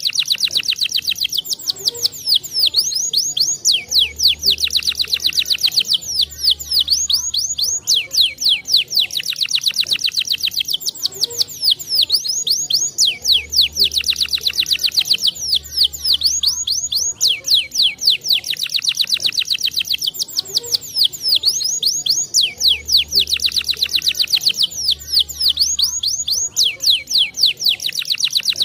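Domestic canary singing continuously in fast, high rolling trills and chirps. The same sequence of phrases repeats about every ten seconds, a looped song recording. A low hum comes and goes in pairs on the same cycle.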